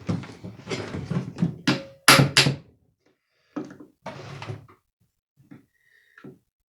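Hand tools being handled and set down on a workbench, with two loud sharp knocks about two seconds in, then scattered lighter knocks and clicks.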